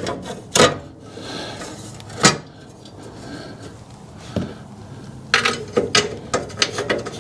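Metal knocks and clanks of the snowblower's chain-case cover being handled and fitted back into place. A few separate knocks come first, then a quick run of clatter about five and a half seconds in.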